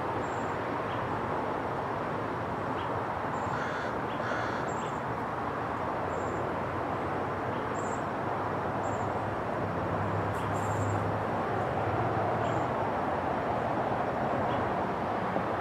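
Outdoor background ambience: a steady hiss with short, high bird chirps every second or two. A low hum swells briefly about ten seconds in.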